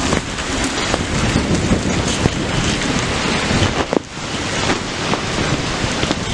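Hurricane wind and heavy rain, the wind buffeting the microphone with a loud, steady roar and low rumble. There is a brief lull about four seconds in.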